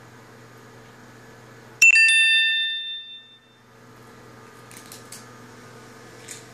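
A single loud bell-like chime about two seconds in, ringing out with several clear high tones and fading away over about a second and a half.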